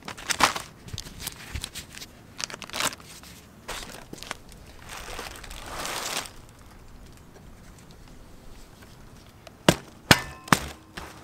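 Plastic bubble wrap crinkling and rustling as a stainless exhaust section is handled. Near the end come three sharp metallic clinks with a brief ring, as a gasket is fitted onto the exhaust flange.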